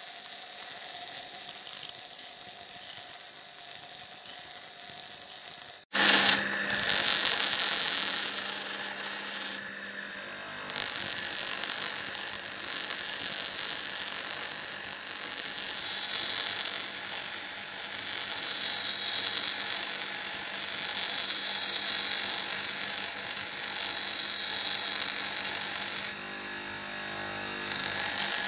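Steel axe head being ground on a spinning motor-driven grinding wheel: a steady high-pitched grinding hiss over the running motor. It cuts off abruptly about six seconds in, then carries on, easing briefly twice.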